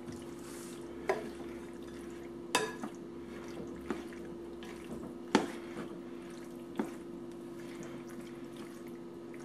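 Red cooking spoon stirring pesto-coated penne in a glass bowl: wet stirring with about six sharp clicks of the spoon against the glass. A steady low hum runs underneath.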